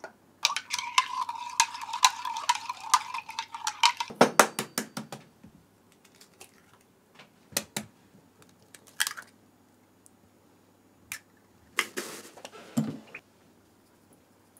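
A metal spoon stirring liquid seasoning in a ceramic jug, clinking and scraping against its sides for about four seconds and ending in a quick run of taps. Later, eggs are cracked into a stainless steel bowl, with two short bursts of sharp cracks.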